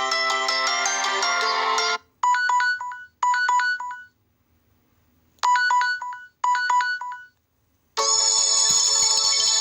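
Samsung Galaxy Tab A ringtones playing one after another. A melodic ringtone ends about two seconds in. Then a phone-style ring of short trilling rings sounds in two pairs with a pause between them, and another musical ringtone starts near the end.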